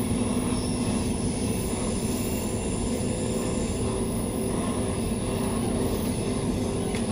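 Interior running noise of a Queensland Rail NGR electric multiple unit under way: the steady rumble of the train rolling on the rails, with a steady low hum and a faint high whine.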